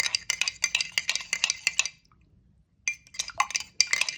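A spoon stirring a cup of hot drink, clinking rapidly against the sides. The stirring stops for about a second midway, then starts again.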